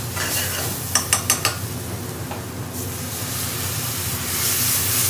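Diced onions sizzling in hot oil in an aluminium pan, with a little water just added to stop them burning, while a metal spoon stirs them, clinking and scraping against the pan in a quick cluster about a second in. The sizzle swells near the end.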